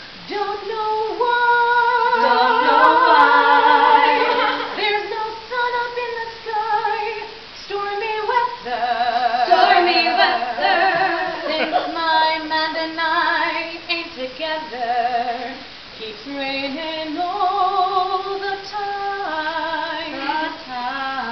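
A woman singing a slow melody, holding long notes with a marked vibrato.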